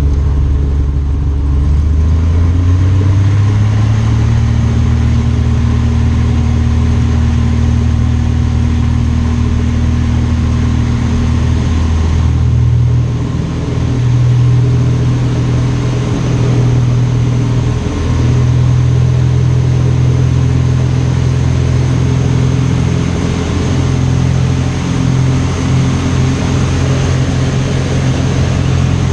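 Piper Pawnee tow plane's piston engine and propeller, heard from inside the cockpit. The engine is throttled up about two seconds in to takeoff power and runs steadily through the takeoff roll and climb-out.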